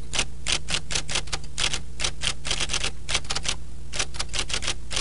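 Golf-ball typewriter terminal printing a line of computer output: its typeball strikes the paper in quick, uneven clicks, about six a second, with short pauses, over a steady low hum.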